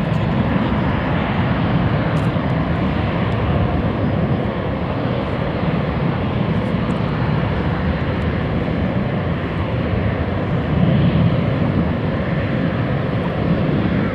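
Boeing 737-800's twin CFM56-7B turbofan engines at takeoff thrust: steady, loud jet engine noise with a faint steady whine on top.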